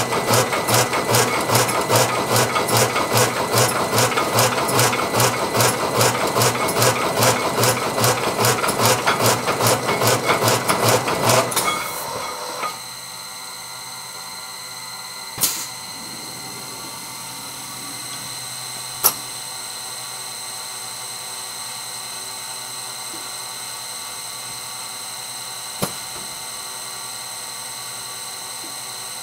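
Zahoransky ET120 CNC brush-making machine drilling holes in a wooden disc brush body, a fast even run of sharp strokes about three a second that stops about twelve seconds in. After that the machine hums steadily, with three single sharp clicks.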